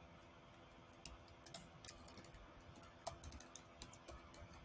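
Faint, irregular keystrokes on a computer keyboard as a short phrase is typed, over a faint steady hum.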